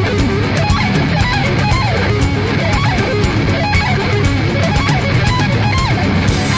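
Music with loud guitar playing, steady throughout.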